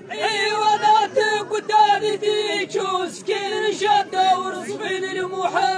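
A group of men singing an Amazigh poetry chant together, their voices holding long steady notes.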